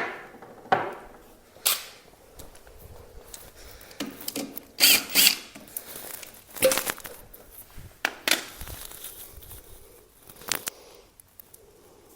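Irregular clicks, knocks and clatters of hand tools and loose parts being handled during motorcycle maintenance, with a few sharper knocks and nothing steady between them.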